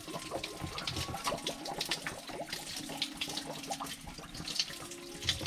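Water splashing and dripping out of an opened Pelican (Dosatron) chemical feed injector pump, with scattered small clicks and splashes.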